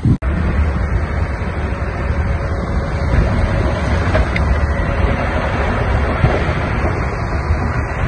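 Diesel engine of heavy earthmoving equipment running steadily, with a brief dropout just at the start.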